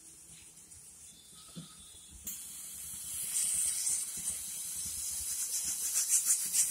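Pressure cooker's weighted steam valve starting to hiss about two seconds in, the hiss growing louder and sputtering in quick pulses near the end as the pressure builds toward its whistle.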